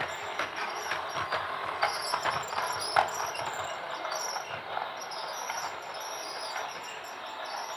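Toy train running: a steady mechanical rattle with scattered clicks and one sharper click about three seconds in.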